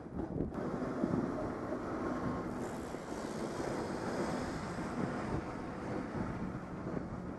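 Wind noise on the microphone of a camera on a moving bicycle, over steady street traffic noise, with a red tram close alongside.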